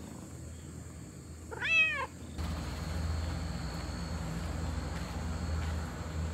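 A cat meows once about two seconds in, a short call that rises and then falls in pitch. After it comes a steady low background rumble.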